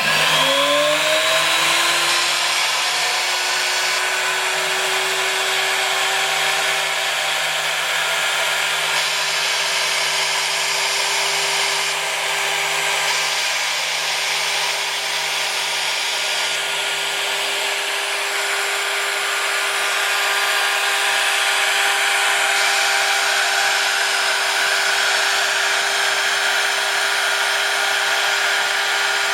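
Small high-speed PCB drill spindle motor on a DIY CNC machine spinning up in the first couple of seconds, with a rising whine, then running at a steady speed with a high whine and hiss.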